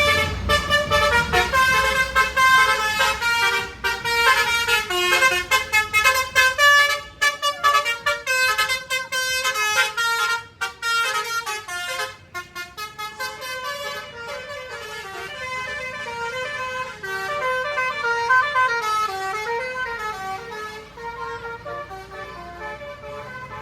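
Basuri 'telolet' multi-tone bus horn playing a tune, its pitched notes stepping quickly up and down. Louder for about the first half, then softer.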